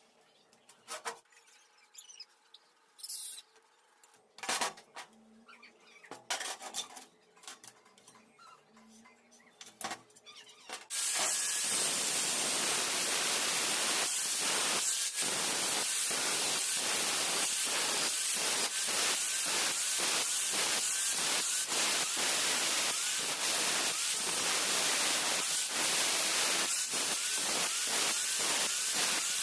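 A few scattered light knocks and clicks of metal being handled. Then, about a third of the way in, electric welding on hollow steel tube starts abruptly: a loud, steady crackling hiss with faint regular ticks about once a second.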